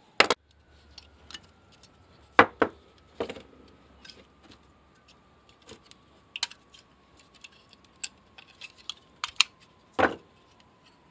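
Clicks and knocks of 18650 lithium cells and the plastic battery-pack housing being handled and set down on a workbench. The sharpest knocks come right at the start, twice about two and a half seconds in, about three seconds in, and once about ten seconds in, with lighter clicks between.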